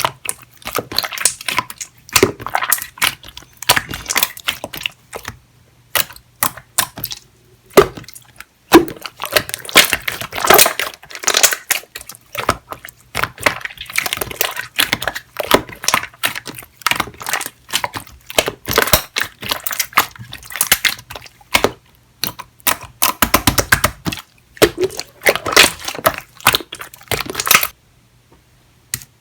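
Clear jelly-textured slime being squished and pressed by hand: a dense, irregular run of sticky clicks, crackles and small air-bubble pops, with a few brief pauses.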